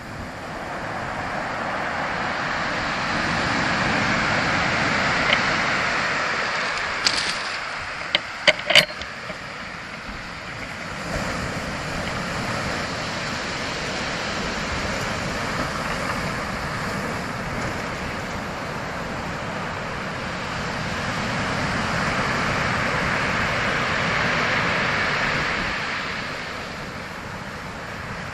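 Ocean surf washing in as a continuous rushing noise that slowly swells and recedes, building twice to a peak. A few sharp clicks come close together about seven to nine seconds in.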